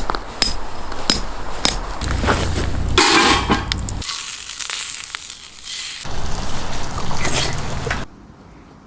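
A rapid series of short cooking sounds cut together: sharp clicks and crackles, then stretches of hissing sizzle from food frying. The sound changes abruptly every couple of seconds and drops away near the end.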